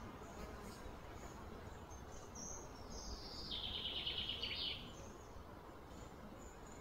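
Outdoor ambience with a bird calling. About halfway in, a high falling whistle runs into a fast buzzy trill that stops abruptly, and faint high chirps come and go.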